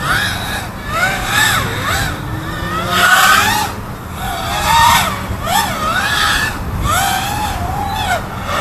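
iFlight Archer X5 FPV racing quadcopter's brushless motors and propellers whining in flight, the pitch swooping up and down over and over as the throttle changes.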